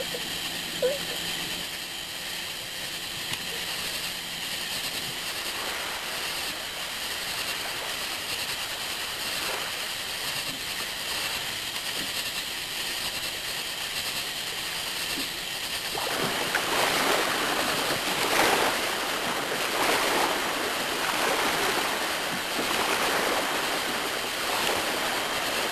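Steady camcorder tape hiss. About sixteen seconds in, a louder fizzing, crackling hiss of small backyard fireworks burning on the ground starts and surges up and down for the rest of the clip.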